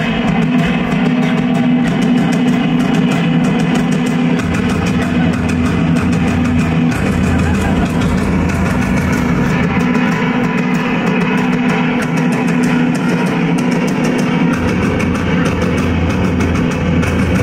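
Live music from a large ensemble of drums, brass and strings: sustained low chords over steady drumming, with a deeper bass line coming in about four seconds in.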